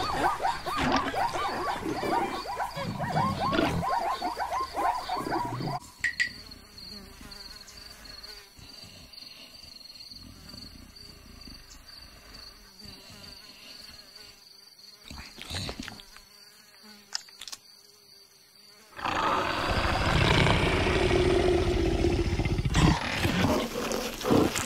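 Cartoon savanna sound effects: a steady high insect buzz, with louder animal sounds at the start and again for the last few seconds.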